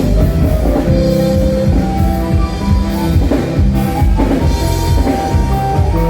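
Live norteño band playing a polka: a saxophone melody over a steady drum kit beat and bass.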